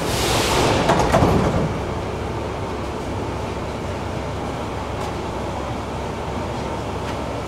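Metro car interior: a sharp hiss of air with a few knocks in the first second and a half, then the car's steady running rumble.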